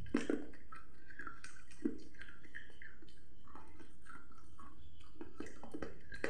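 Children chewing sweets, with scattered soft mouth clicks over a steady low background hum.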